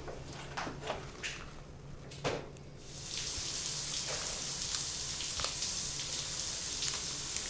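Shower running: a steady spray hiss that comes in suddenly about three seconds in, after a few faint small clicks.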